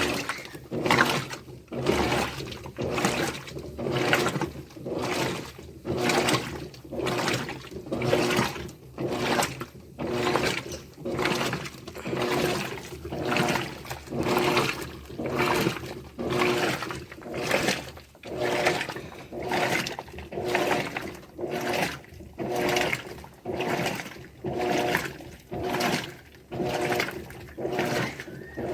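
Electrolux LTD13 Turbo Economia top-loading washing machine agitating a load: water sloshes in regular surges about once a second over a steady motor hum, starting abruptly as the wash stroke kicks in.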